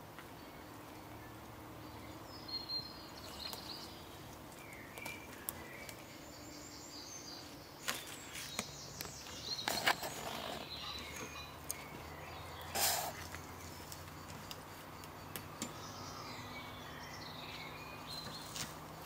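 Birds chirping, with scattered knocks, creaks and rustles as a log is wheeled over leaf litter and twigs on a two-wheeled log trolley. The loudest knocks come about eight, ten and thirteen seconds in.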